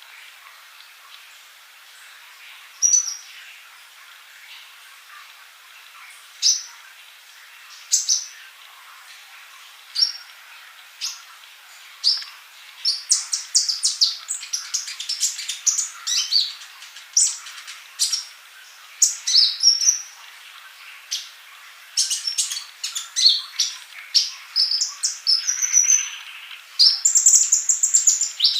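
Male sunbird (kolibri ninja) singing: single sharp, high chirps every second or two, breaking about twelve seconds in into fast twittering runs of high notes.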